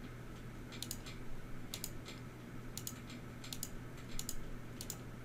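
Computer mouse button clicking about six times, roughly once a second, each a quick press-and-release double tick, as numbers are entered on an on-screen calculator. A faint steady low hum runs underneath.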